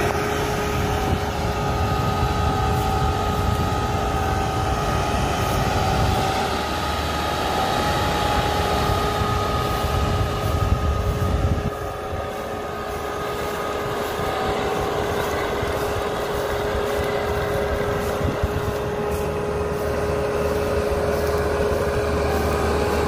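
Green Field Crop King 120 crawler combine harvester's 120 HP engine running steadily under load with a constant whine as the machine turns on its tracks; it drops slightly in level about halfway through.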